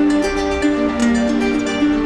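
Background music: a light plucked-string tune, ukulele or guitar-like, with a steady rhythm.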